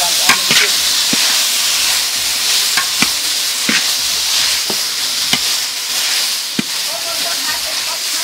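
Food sizzling in hot oil in a pan, a steady frying hiss with scattered sharp knocks of a utensil against the pan as it is stirred.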